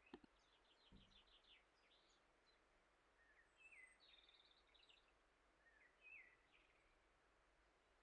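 Near silence with faint birdsong: a few short chirps and quick trilled runs of notes, and a soft knock at the very start.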